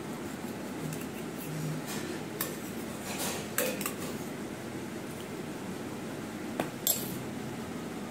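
Cutlery clinking against a thali plate during a meal: a handful of scattered sharp clinks, the loudest about halfway through and near the end, over steady low background noise.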